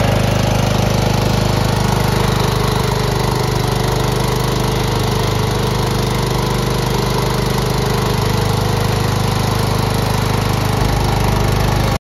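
Grillo FD 450 ride-on front-deck mower's engine running steadily at a constant speed, cutting off suddenly near the end.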